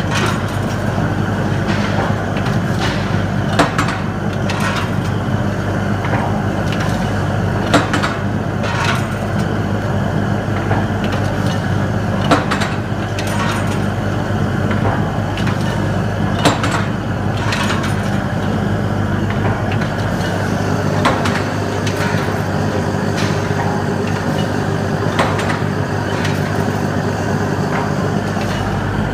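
Automatic brass-forging machine running: a steady low hum under a string of metallic clicks and knocks, with a louder clank about every four seconds as it cycles.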